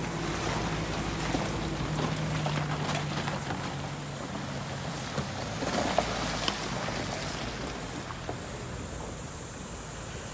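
A motor running steadily under a constant rushing noise, with its low hum fading out about six seconds in and a few light clicks scattered through.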